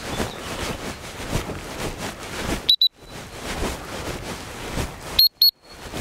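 A dog-training whistle blown in two short double toots, about three seconds apart. This is the turn signal that tells a quartering dog to change direction. Between the toots there is a steady rush of wind noise and footsteps through grass.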